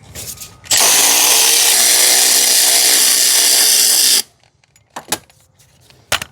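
Power tool running for about three and a half seconds, spinning out a bell housing bolt, then stopping abruptly; a couple of sharp metallic clicks follow.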